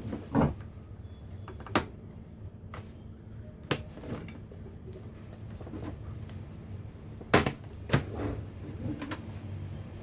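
Small tools and parts being handled on a repair bench: a handful of separate sharp clicks and knocks, the loudest about seven seconds in.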